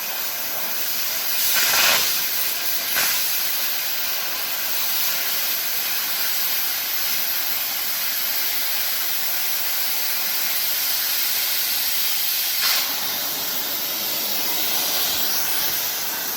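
Oxygen cutting torch hissing steadily, with a couple of brief louder surges.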